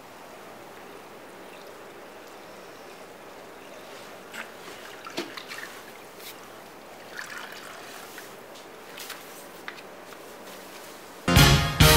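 Steady low hiss with a few faint, scattered rustles and taps; loud music breaks in about a second before the end.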